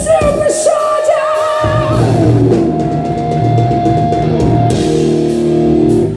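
Live hard rock band with a female singer, electric guitars and drum kit: a sung line, then a long held vocal note over a sustained chord with drum hits, which stops abruptly near the end as the song finishes.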